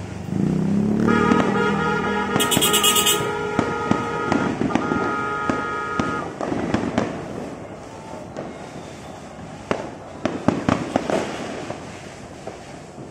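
Fireworks going off: aerial shells bursting with sharp bangs and crackling pops, loudest in a cluster about ten seconds in. During the first six seconds a steady whistling tone sounds over the pops.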